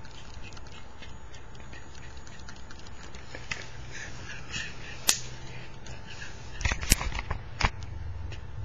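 Scattered light clicks and knocks over a steady hiss, with a few sharper, louder knocks about five seconds in and a quick cluster around seven seconds in.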